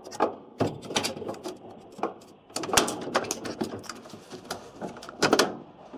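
Irregular plastic clicking and rattling as a wire clip and connectors are worked loose on a washing machine's front control panel, with a louder scrape or clatter a little after five seconds in.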